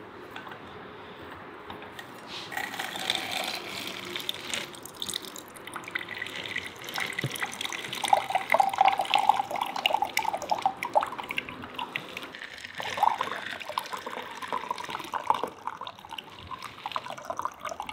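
Pomegranate juice pouring and splashing into a glass from a lever-arm manual juicer as pomegranate halves are pressed. The juice pours like from a bucket, starting about two and a half seconds in, because the fruit is very juicy.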